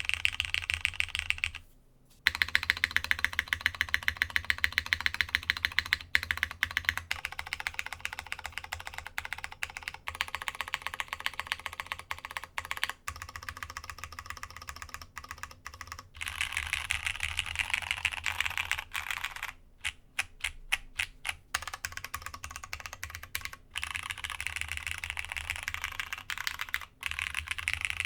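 Typing on a Masjewerke K-III custom mechanical keyboard with plateless Cherry MX Brown switches, GMK keycaps and a brass internal weight. Quick, steady keystrokes with a few short pauses, and a run of separate single strokes about two-thirds of the way through.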